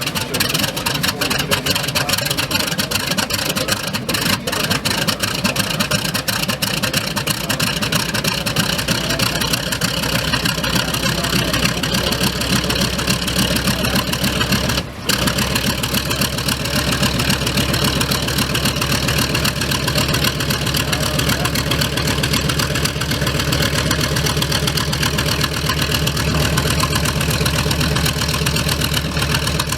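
Piston aircraft engine running on the ground at low power, with a rapid, crackling firing beat. It cuts out briefly about halfway through, and the deep part of the sound grows stronger in the second half.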